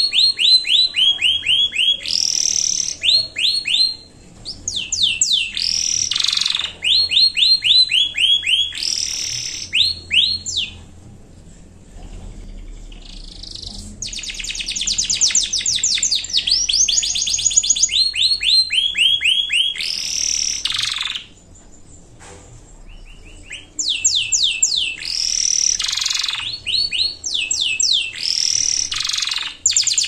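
Domestic canary singing: phrases of fast, rapidly repeated trilled notes at several pitches, run together in long rolls and breaking off twice for a couple of seconds.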